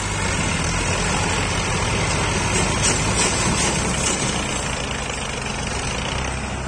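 Tractor diesel engines, a Massey Ferguson 240 among them, running steadily under heavy load while pulling a sugarcane-laden trailer.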